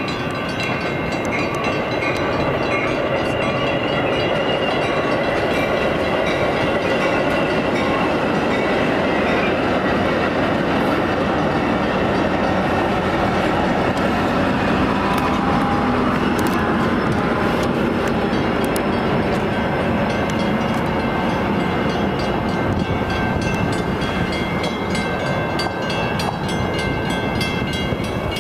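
Metra commuter train of bilevel gallery cars rolling past, with steady wheel and rail noise.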